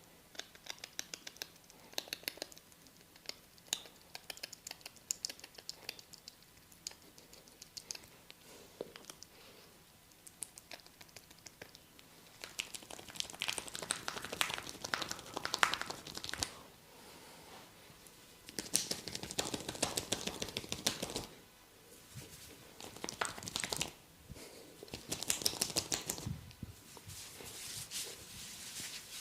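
Head massage: fingers scratching and rubbing through hair on the scalp, heard as scattered light crackles, then three louder spells of quick crackly scratching.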